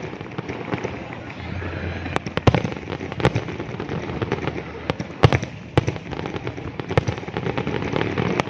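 Fireworks exploding overhead: sharp bangs at irregular intervals, roughly one every second or less, over a continuous background rumble and crackle.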